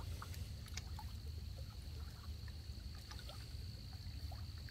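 Small ripples lapping and dripping at the water's edge in scattered faint ticks, over a steady low wind rumble on the microphone and a thin steady high-pitched tone.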